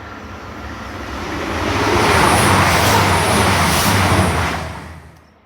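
Class 222 Meridian diesel multiple unit passing through the station at speed. The rush of wheels and underfloor engines builds over about two seconds, holds loud, then drops away quickly near the end.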